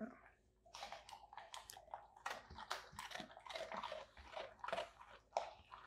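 Labrador retriever chewing a hard, iced bone-shaped dog-biscuit cookie: a run of faint, irregular crunches.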